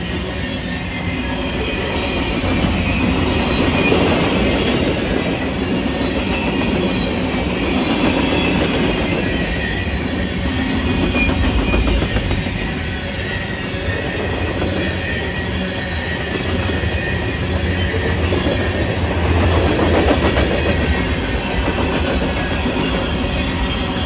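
Freight cars of a mixed manifest train, tank cars then autorack cars, rolling past: a steady rumble and clickety-clack of steel wheels on rail, swelling and easing in loudness every several seconds, with faint high-pitched wheel squeals.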